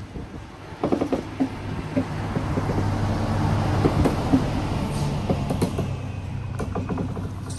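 Yellow rail service railcar passing close by on the track: a steady low running hum that grows louder to a peak about halfway through and then eases, with sharp clicks and clacks from the wheels on the rails.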